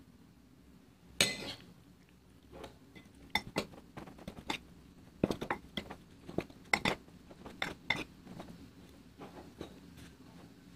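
Metal spoon clinking and scraping against a ceramic bowl while tossing raw chicken pieces in flour: irregular clinks, the loudest about a second in.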